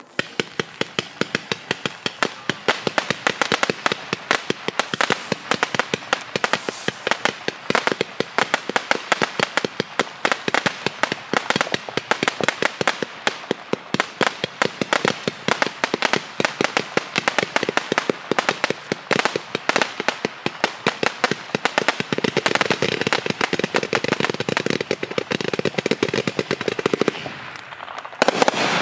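A 228-shot consumer firework cake fires a rapid, unbroken string of crackling comet shots, several a second. Near the end there is a brief lull, then louder shots.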